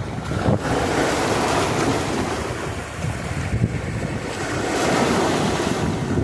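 Ocean waves washing and surging, with wind buffeting the microphone; the wash swells about a second in and again near the end.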